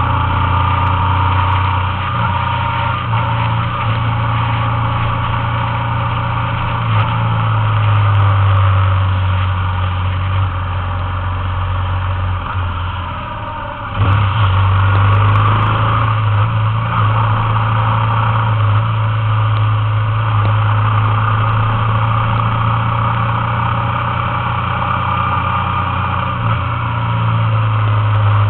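Motorcycle engine running steadily while cruising, heard from on board the bike, with wind and road noise over it. About halfway through the sound dips, then cuts back in suddenly louder.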